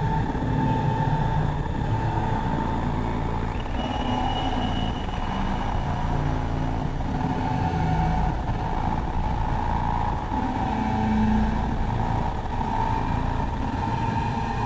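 Soma Laboratories Lyra-8 analog drone synthesizer playing a dense low drone with shifting lower tones and a steady higher tone, washed in added reverb. About four seconds in, a thin high tone slides up and holds for a while.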